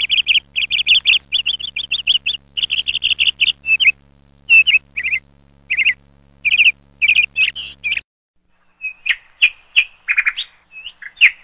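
Small birds chirping in quick, dense runs of high notes. About eight seconds in, the sound changes to sparser, varied calls.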